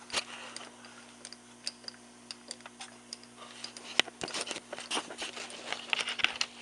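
Scattered clicks and light metal taps as a milling machine's rotary table is cranked round by hand, with a sharper click about four seconds in and a quick run of small ticks after it. A faint steady hum runs underneath.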